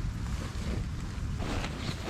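Wind buffeting the microphone as a steady low rumble, with faint rustles and crackles near the end.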